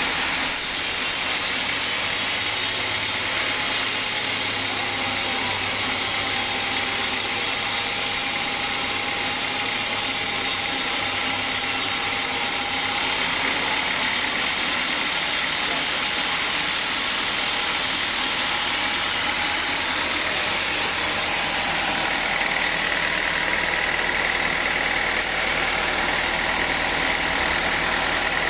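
Sawmill saw and its drive running steadily through teak, a continuous machine noise with a thin steady whine in it.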